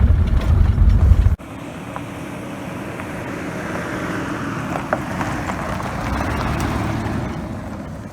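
Wind and road noise from a pickup truck driving at about 35 mph, heavy and low at first, with wind buffeting the microphone. About a second and a half in it cuts off abruptly and gives way to a lighter, steady rushing noise that swells and then fades near the end.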